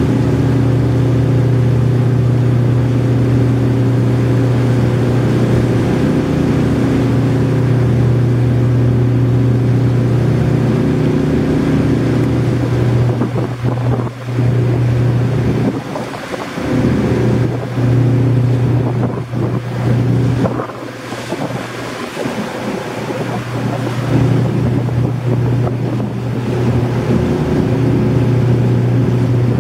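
Steady low drone of a ship's engine, one deep hum with overtones above it, over the rush of water and sea wind. A few times in the middle, gusts buffet the microphone and the drone briefly drops away.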